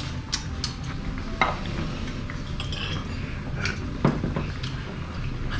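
Scattered clinks of cutlery against ceramic dishes at a dining table, a handful of sharp ones, over a steady low room hum.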